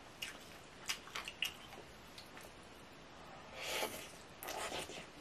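Close-up wet chewing with a few small mouth clicks, then near the end two slurps as a wide, flat glass noodle in mala broth is sucked in.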